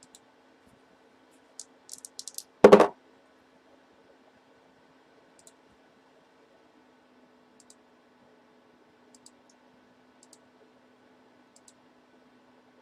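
Handling noise: a few light clicks and crinkles, then one loud, dull thump about three seconds in, followed by scattered faint ticks over a steady low hum.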